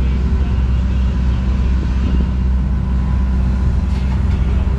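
An engine running steadily, a low rumble with a faint steady tone over it, with a few faint clicks about four seconds in.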